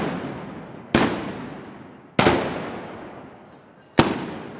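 Three loud gunpowder blasts about a second and a bit apart, each echoing and dying away over about a second.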